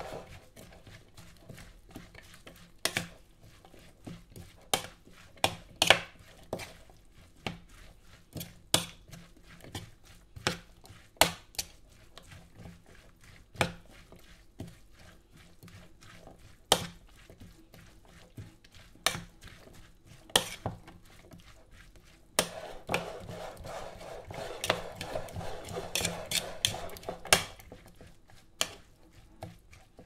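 Chopped vegetable salad being stirred in a bowl with a spoon: irregular clicks and knocks of the spoon against the bowl over the wet rustle of the vegetables. The rustling thickens for a few seconds about two-thirds of the way through.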